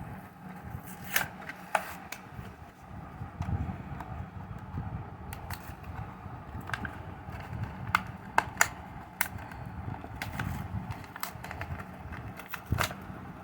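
A Hot Wheels blister pack being opened by hand: the plastic blister and cardboard card crinkle and give off many scattered sharp clicks and snaps.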